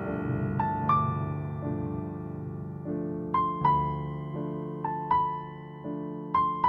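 Background piano music: a slow, gentle melody of single higher notes over held lower chords that change every second or two.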